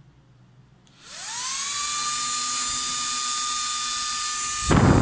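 Small 12 V DC motor air blower starting up about a second in: its whine rises quickly, then holds as a steady high whine at full speed. A loud rushing noise joins near the end.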